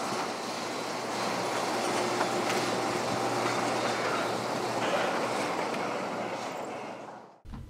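Steady mechanical running noise with a rattling, hissy quality and a faint low hum, cutting off suddenly near the end.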